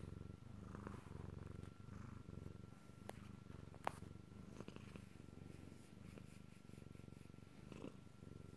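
Domestic cat purring faintly and steadily, the low rumble swelling and fading in a slow rhythm, with a single sharp click about four seconds in.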